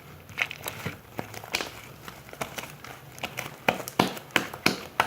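Butter slime, slime mixed with soft modelling clay, being kneaded and stretched by hand: a run of irregular sticky clicks and pops, a few a second, louder over the last second and a half.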